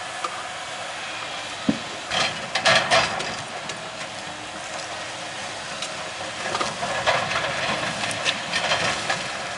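Heavy logging machine's diesel engine labouring under load on a large tree, with several sharp cracks and knocks about two to three seconds in and a few more later on.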